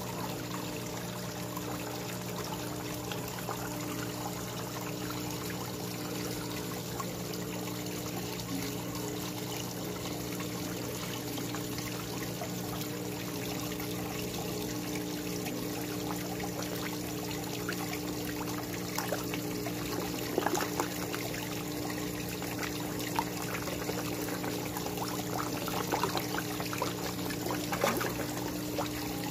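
Water pouring and trickling down a rock waterfall into a koi pond, steady, over a low steady hum. In the second half, brief splashes from koi thrashing at the surface.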